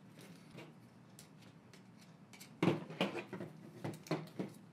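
Small clicks and knocks of a metal antenna bracket being handled and pressed into a fuel nozzle's body, with a cluster of louder knocks in the second half.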